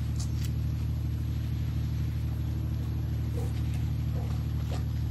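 An engine running steadily: a low, even drone with no change in pitch, and a few faint clicks over it.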